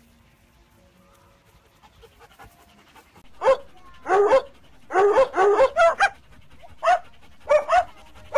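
Golden retriever giving a run of about ten short, high-pitched barks in quick groups, starting about three and a half seconds in.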